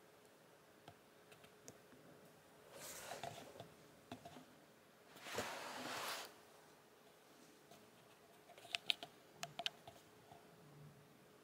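Faint small wet clicks and soft fur rustles of a young kitten licking and grooming its paws on a carpet. Two louder breathy hushes of about a second each come near the middle, and a quick cluster of clicks follows near the end.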